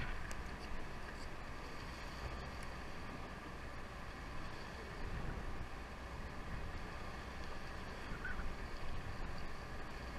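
Steady low rumble of a sportfishing boat's engine at sea, with an even hiss of wind and water over it.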